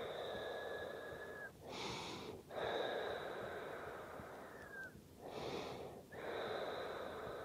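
A person breathing slowly and faintly: long exhales carrying a thin whistling tone, broken by two short airy inhales about two and five and a half seconds in.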